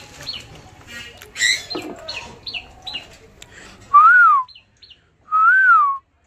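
Caged green parakeet chirping in quick, short, high notes, then giving two loud whistles that each rise and fall, the first about four seconds in.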